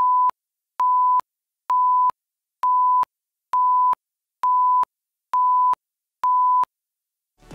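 Countdown beeps of a broadcast programme slate: a pure single-pitch tone in short beeps, about one a second, eight times, then stopping.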